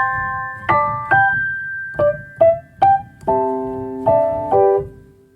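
Piano music: a melody of single struck notes, then chords in the second half, the last chord dying away near the end.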